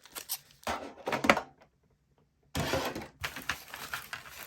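Handling noise from a Pokémon card tin and its contents: a few knocks and taps, the loudest about a second in, then a pause and a couple of seconds of rustling as the booster packs are taken out.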